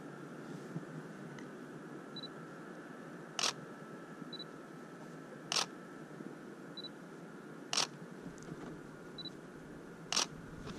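Canon DSLR taking four shots in a row: each time a short high focus-confirmation beep, then about a second later the clack of the shutter, roughly every two seconds.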